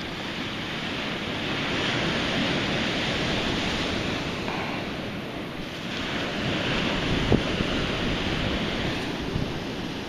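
Surf rushing on the beach mixed with wind on the microphone, swelling and easing twice, with one brief click about seven seconds in.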